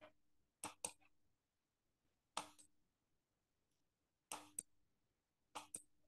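Near silence broken by a few short, faint clicks, several of them in quick pairs.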